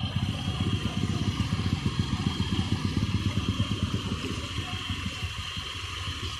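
A vehicle engine running steadily, a low fast throb that eases off a little near the end.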